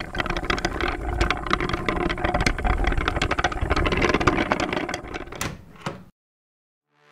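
Rapid, dense clatter of many small hard clicks, like cubes tumbling and knocking together as they fall into place, dying away about six seconds in.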